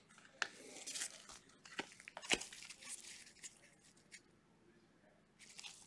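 Gloved hands handling a trading-card retail box and its packaging: faint rustling and crinkling with a few sharp taps, the loudest a little over two seconds in, then quiet until a little more rustling near the end.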